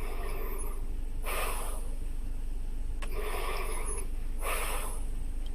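A sleeping person snoring: four noisy snore breaths, each about half a second long and roughly a second and a half apart, over a steady low hum.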